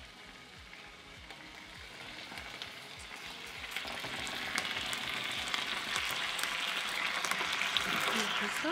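Pork fillets sizzling in a pan of reduced pomegranate sauce. The sizzle grows steadily louder from about halfway through as more meat goes into the hot pan, with a few light clicks.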